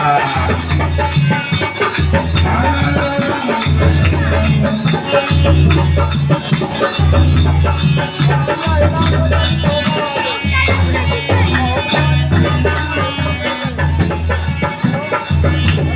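Instrumental break in a rural Hindi folk devotional song to the goddess (dehati Devi geet): a deep drum beat repeating in a steady pattern under a melody, with no singing.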